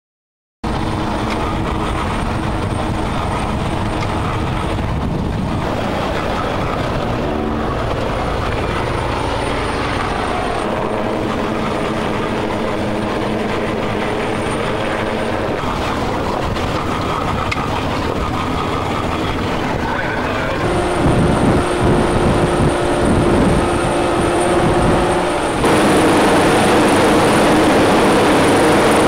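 The twin outboard engines of an RNLI Atlantic class inshore lifeboat running at speed, mixed with wind and spray noise on the boat-mounted camera. The engine note changes abruptly several times and grows louder about 21 seconds in, and again about 26 seconds in.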